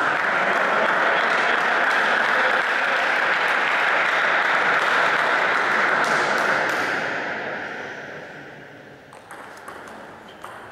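Spectators applauding a won point at a table tennis match, steady for about seven seconds and then dying away. A few light table tennis ball bounces come near the end.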